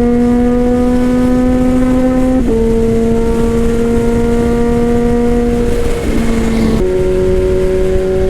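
Kawasaki ZH2's supercharged inline-four running through an Orion aftermarket exhaust under way, its note climbing slowly as it accelerates. The pitch steps down at about two and a half seconds as it shifts up, and changes again near seven seconds.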